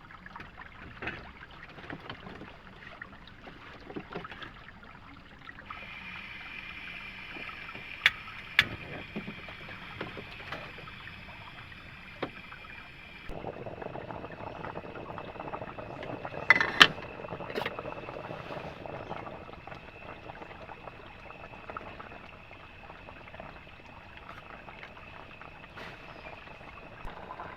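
Water flowing and splashing around a bamboo raft, with a few sharp knocks and a steady high tone behind it.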